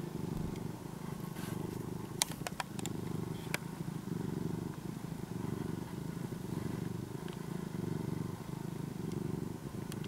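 Ginger-and-white domestic cat purring close up while dozing, a steady low purr swelling and easing with each breath. A few faint clicks sound about two to three seconds in.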